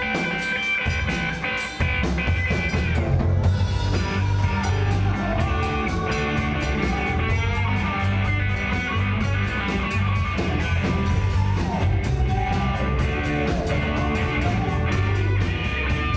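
Live rock band playing through amplifiers: electric guitars over bass guitar and a steady drum-kit beat.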